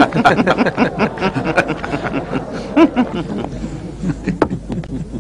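Men laughing and snickering in mockery, the laughter thinning out after about three seconds.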